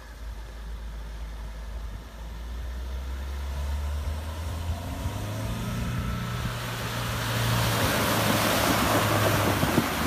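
Mahindra Scorpio SUV's diesel engine running with a low steady hum that rises in pitch and grows louder about halfway through. A rushing noise builds over the last few seconds.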